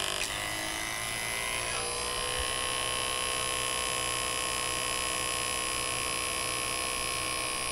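Battery-powered Hercules 2 CFM two-stage refrigeration vacuum pump running with a steady motor hum and whine, its pitch shifting slightly in the first couple of seconds and then holding steady. It has just been switched on and is pulling a vacuum on an air-conditioning system's refrigerant lines.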